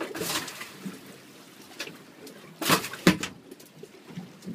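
Knocking and handling noises on a small boat's deck, with two sharp, loud thumps close together near the middle, over steady wind and sea noise.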